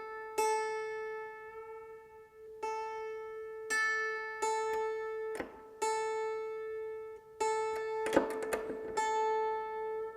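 Hammered dulcimer strings plucked one at a time, about seven times, all ringing on the same note A, to tune a bass-bridge string by ear against its matching string on the treble bridge. A short rattle of handling noise comes about eight seconds in.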